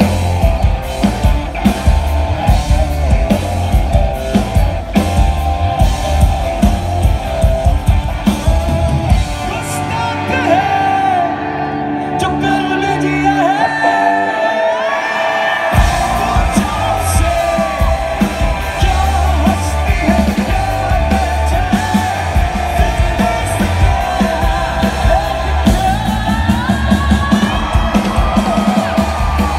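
Live rock band playing, with drums, bass, guitars and a lead vocal. About halfway through the drums and bass drop out for a few seconds, leaving guitar and voice, then the full band comes back in.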